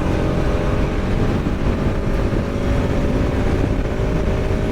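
Motorcycle engine running at a steady, even pitch while riding along, with wind rumbling on the microphone.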